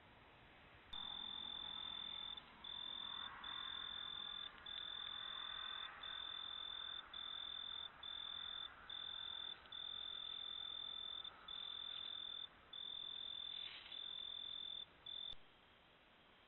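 A cricket trilling: one high, even tone in long bouts of one to two seconds with short breaks between them. It begins and ends abruptly with a click.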